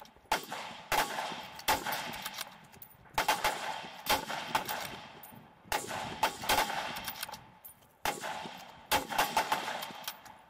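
Centrefire rifle fire from several rifles on a firing line: many sharp shots at uneven intervals, some in quick runs of two or three, each with a short echo.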